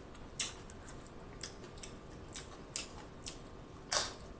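Tortilla chips crackling and snapping as loaded nachos are picked apart by hand, about half a dozen sharp, irregular clicks, with the loudest crunch near the end as a chip goes to the mouth.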